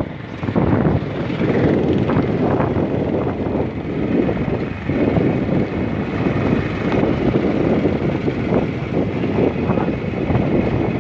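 A vehicle driving along a road: engine and road noise mixed with wind rumbling on the microphone. A faint, steady high whine runs above it.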